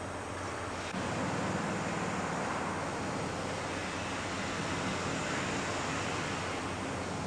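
Steady rushing machinery noise with a low hum, growing louder about a second in.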